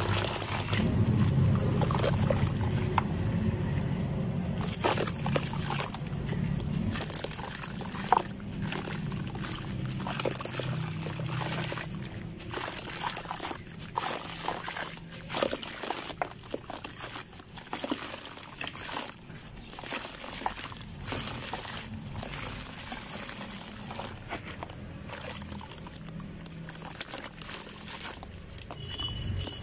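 Hands squeezing and crumbling clumps of wet sand into a bucket of muddy water. The water sloshes and trickles, with many small gritty crackles as the sand breaks apart.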